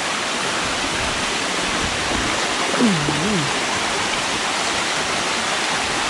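Erawan waterfall's cascades rushing steadily, an even hiss of falling water. A short voiced sound comes about three seconds in.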